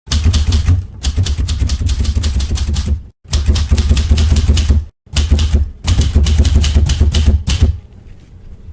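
Rapid mechanical clattering over a low hum, in three runs that stop abruptly, the last trailing off near the end.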